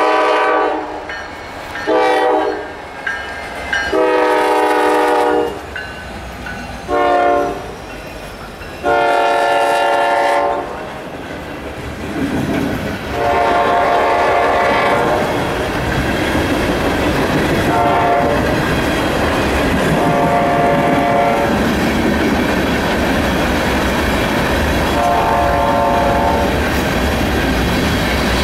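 Norfolk Southern diesel locomotive's multi-chime air horn blowing a series of long and short blasts, typical of a train sounding for a grade crossing. From about halfway in, the freight train passes close with a steady loud rumble and wheels clattering over the rails, while shorter horn blasts go on.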